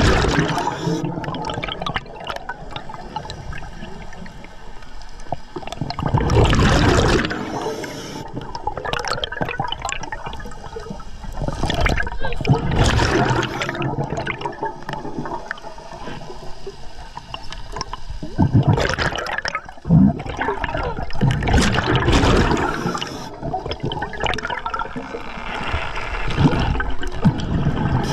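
Underwater sound of a scuba diver breathing through the regulator: a bubbling rush of exhaled air comes every few seconds, with a steady water hiss in between.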